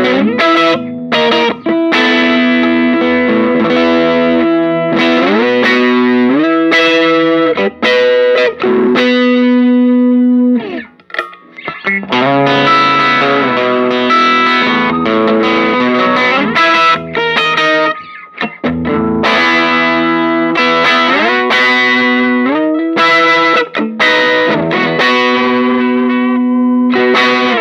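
STADD Teleman Telecaster-style electric guitar played through distortion: held notes and phrases with pitch slides and bends, broken by two short pauses.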